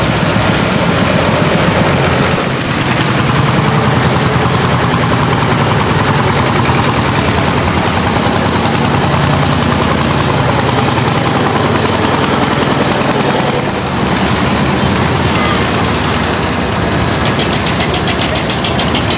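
Vintage tractor engines running as the tractors pass one after another. The most prominent is a hot-bulb Landini single-cylinder engine with a rapid, even exhaust beat.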